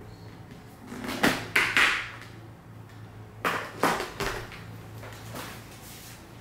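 Motorcycle helmet being picked up and handled: a few soft knocks and scrapes in two groups, about a second in and again about three and a half seconds in.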